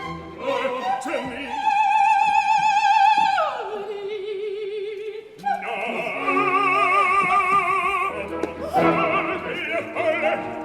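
Operatic soprano singing with a wide vibrato. She holds a high note for about two seconds, then slides down to a lower held note; after a short break about five seconds in, she sings on in a run of shorter notes.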